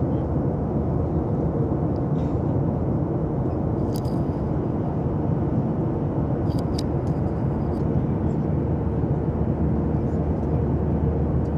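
Steady low rumble of cabin noise inside an airliner at cruise: engine and airflow noise heard through the fuselage. A few faint ticks come near the middle.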